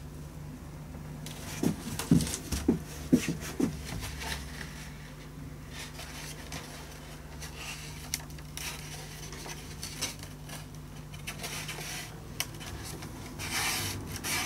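Hands handling and rubbing the loose wooden top of a cello as a crack is pressed level for gluing, with a few light knocks of the plate about two to four seconds in and soft rubs and clicks after, over a steady low hum.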